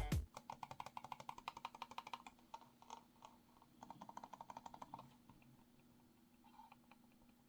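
Muted clicks of a low-noise mouse's buttons, the G-Clicker OP99 Master, pressed rapidly in two runs of about eight to ten clicks a second, with a few single clicks between and after. The clicks are faint, a soft 'dogak' rather than a sharp snap.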